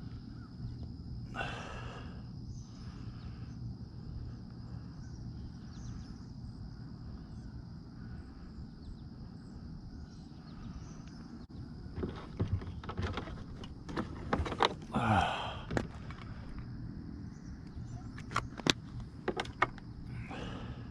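Handling of a kayak and fishing tackle: scattered clicks and knocks, thicker in the second half, over a steady low hum and a thin steady high tone.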